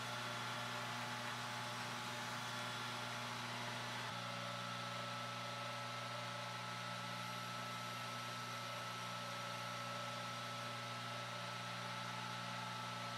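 Belt grinder running steadily while a Damascus steel knife blade is ground on the belt: a steady motor hum with a hiss of abrasive over the steel. The hum's pitch shifts slightly about four seconds in.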